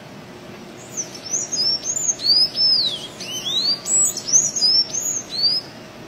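Sanhaço-azul, a blue-grey Thraupis tanager, singing a rapid string of high, squeaky notes that glide up and down. The song starts about a second in and stops shortly before the end, over a steady hiss.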